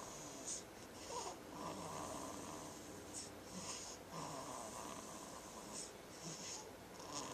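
A baby snoring in her sleep: soft, raspy breaths in and out, one about every second or two.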